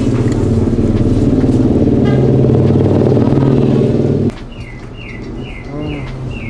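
A motor vehicle engine, most likely a motorcycle's, runs steadily and loudly, then cuts off abruptly about four seconds in. After that a bird chirps in quick, repeated falling notes, about three a second.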